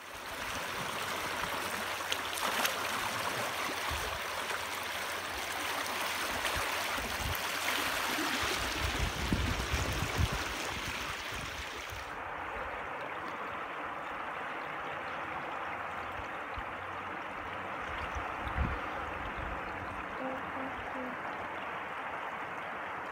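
Steady rush of running floodwater flowing in a desert wash, with a few low thumps. About twelve seconds in the sound turns duller as its higher hiss drops away.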